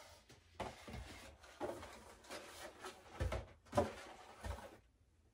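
Cardboard boxes and toiletry items being handled and set down: rustling with several soft knocks and thumps, dying away near the end.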